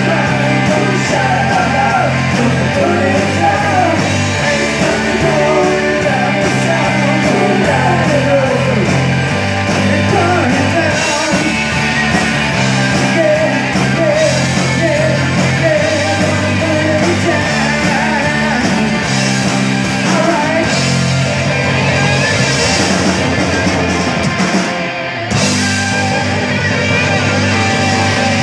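Live rock band playing: electric guitars, bass guitar and drum kit, with singing. The band breaks off briefly near the end and comes straight back in.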